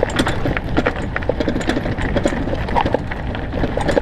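Mountain bike rolling fast down a rough dirt trail: a steady rumble of wind and tyres with quick, irregular clicks and rattles from the bike jolting over bumps.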